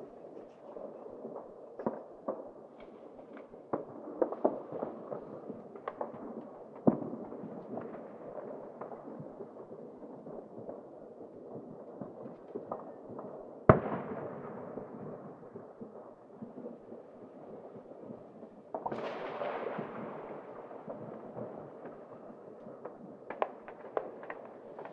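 New Year's Eve fireworks and firecrackers set off by private people across city streets: scattered distant bangs and pops, one loud sharp bang a little past halfway that rings on and fades, and a dense rush of crackling about three-quarters through.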